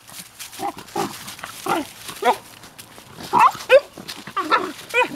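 A dog whining and yipping in a string of short, pitched calls, roughly two a second, many bending up and then down in pitch.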